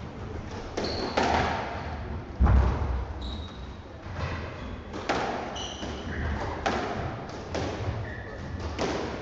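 Squash rally: the ball cracking off rackets and thudding against the front wall and glass back wall, in a run of sharp hits about once a second. Short high squeaks of court shoes on the wooden floor come between the shots.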